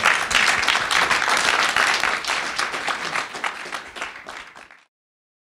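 Audience applauding, a dense patter of many hands clapping that thins out and then cuts off suddenly a little under five seconds in.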